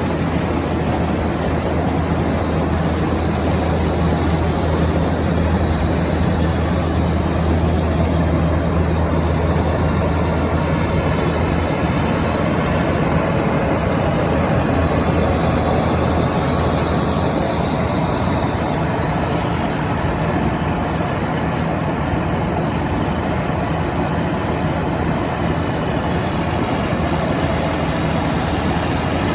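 Case IH 2188 Axial-Flow combine's diesel engine running steadily with a low, even hum.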